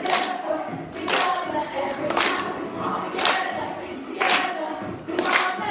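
A group of young voices singing together, with hands clapping in time about once a second.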